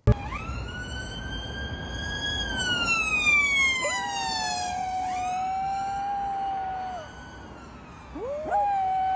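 A dog howling: long drawn-out notes that slide slowly down in pitch, breaking off a few times and starting again with a quick upward swoop.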